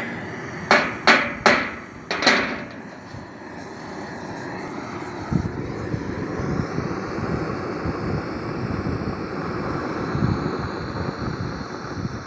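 Four sharp metal knocks in the first two and a half seconds, then a gas cutting torch's flame hissing steadily with fine crackling as it cuts into a steel plate, with one more knock about five seconds in.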